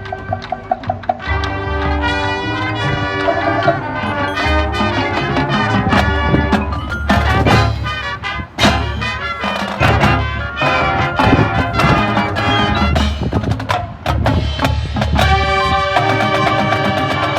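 Music: a busy instrumental passage of many pitched notes with sharp percussive hits throughout.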